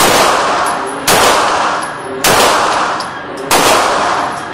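Sarsilmaz ST9 9mm pistol firing four shots, about one a second. Each sharp report is followed by a long echoing decay in an indoor range.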